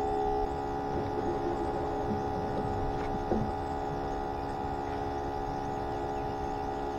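Steady whine of a bait tank's pump, a constant hum made of several unchanging tones, with one small knock about three seconds in.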